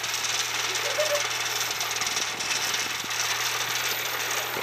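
Engine of a home-built off-road buggy running steadily under load on a muddy slope, with a rattling, clattering note.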